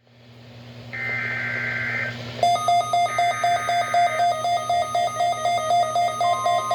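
NOAA Weather Radio receiver coming on with hiss and hum, then two buzzy, screeching bursts of SAME digital header data, each about a second long. Over them the receiver's alarm beeps steadily, about two to three beeps a second, and a steady tone joins near the end, signalling the weekly test alert.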